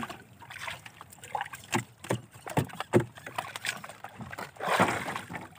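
Water slapping and sloshing against a small outrigger boat, with scattered sharp knocks and taps and a louder splash about four and a half seconds in.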